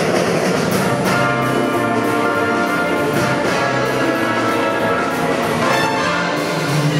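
Jazz big band playing: saxophone, trombone and trumpet sections hold sustained chords over a drum kit keeping a steady beat.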